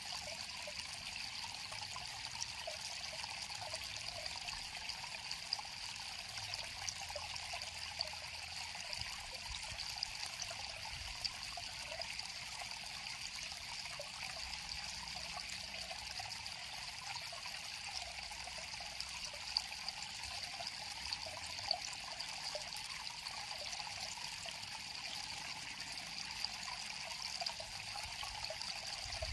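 River water flowing and trickling over stones, a steady babbling with small splashes throughout.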